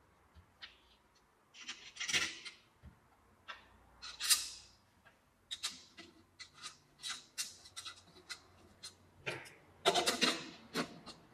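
Metal parts of a DIY vacuum former being handled: an aluminium bar and its fittings give a run of irregular small clicks and knocks, with a few short scrapes.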